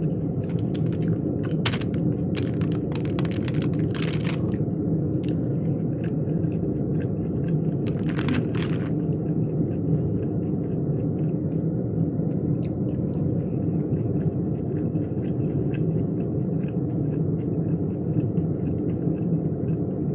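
A person chewing and biting food close to the microphone, with clusters of wet, crackly mouth clicks a few seconds in and again near the middle, over a steady low rumble.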